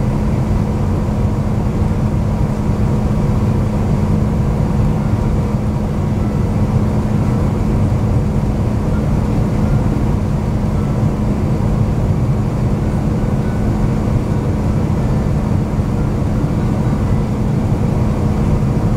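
Steady cabin noise inside an Airbus A350-900 airliner on its descent: a low rumble with a constant hum.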